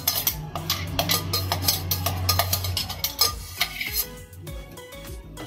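Background music with repeated clinks of a steel spoon against a glass bowl of curd.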